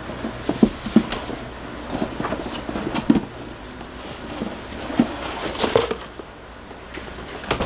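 Packaging and parts being handled: scattered short knocks, taps and rustling.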